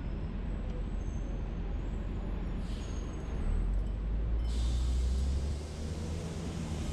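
A car driving on city streets: a steady low rumble of engine and tyres that swells from about three and a half seconds in, with a short hiss near three seconds and a longer hiss starting about four and a half seconds in.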